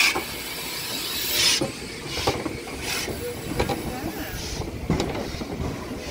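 Steam hissing in short, irregular bursts from a British Railways Ivatt Class 2MT 2-6-2 tank locomotive, the loudest burst about a second and a half in. A few sharp metallic clicks follow through the second half.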